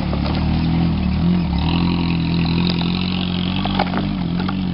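Small 4x4 SUV's engine running steadily at low revs while it tows a person on a board, the pitch dipping briefly a little over a second in. From just under two seconds in, a rustling hiss joins it as the board drags over dry cut brush and dirt.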